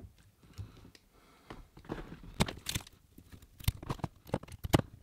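Scattered light clicks and crinkling as a plastic-sheathed electrical cable is handled and its bare wire ends are worked by hand, starting about a second and a half in.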